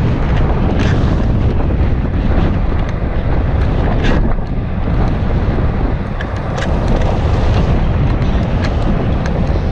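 Wind buffeting the microphone of a ride-along camera on a moving Citycoco electric chopper scooter, a steady heavy rumble with tyre and road noise under it. Scattered sharp knocks and rattles come through every second or so.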